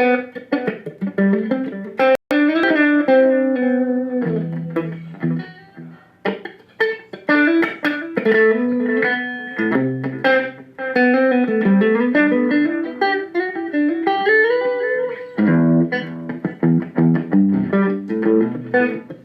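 Electric guitar played through a Zoom G3Xn multi-effects pedal on a crunch patch: a Matchless amp-and-cabinet simulation with a very light delay. It plays a run of single-note melodic phrases with slides and bends, mixed with chords.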